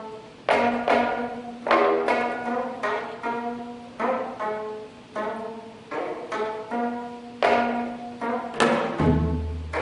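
Korean traditional ensemble music: a geomungo (six-string plucked zither) sounding a run of sharply plucked notes that ring and die away, with a deep drum boom about nine seconds in.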